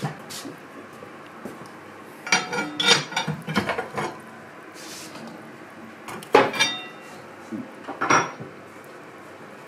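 Metal clattering and clanking as a pan of foil-wrapped fish is loaded into a cast-iron wood stove: a run of rattling knocks, then two sharp ringing clanks of metal on metal a couple of seconds apart.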